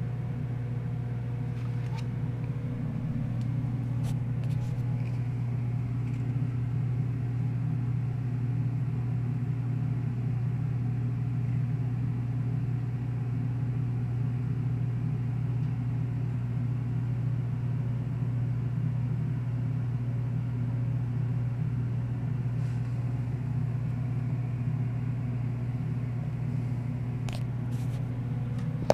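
Steady low rumble of background noise with a few faint clicks, and no speech.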